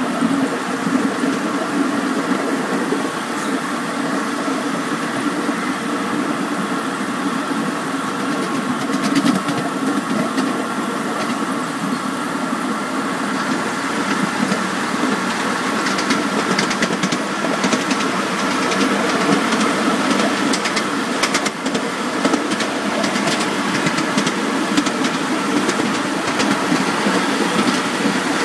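A 7¼-inch gauge ride-on SD40-2 model locomotive running along the track, heard from the driver's seat as a steady mechanical hum. Quick sharp clicks join it in the second half.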